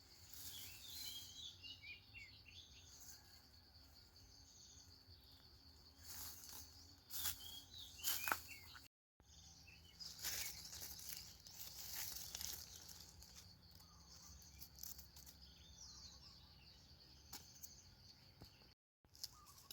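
Faint rural outdoor ambience: a steady high insect trill with scattered bird chirps, and now and then a brief rustle or knock. The sound cuts out completely for a moment twice.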